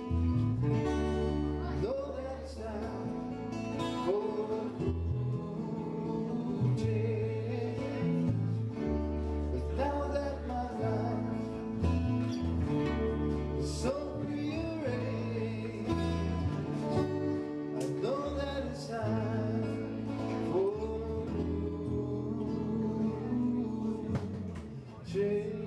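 Background song: a voice singing over guitar and bass, steady throughout.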